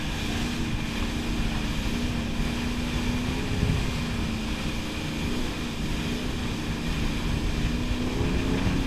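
Wake boat's inboard engine running steadily at towing speed, a constant drone, mixed with rushing water from the wake and wind on the microphone.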